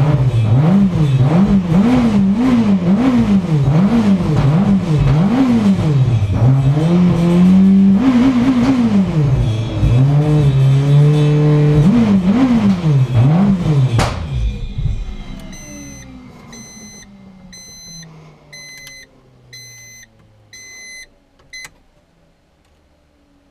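1997 Audi A4's turbocharged 1.8T inline-four with an ultra-light flywheel, blipped in quick free revs about once a second, twice held briefly higher. About two-thirds of the way through it shuts off and its pitch falls away fast. A dashboard warning chime then beeps repeatedly; the owner says this engine dies because the revs drop faster than the idle control can follow.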